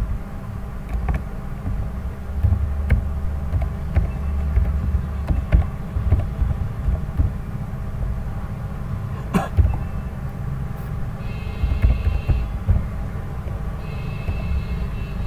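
Steady low background rumble with a few sharp clicks of computer keyboard keys as code is typed. A faint high-pitched whine comes in twice near the end.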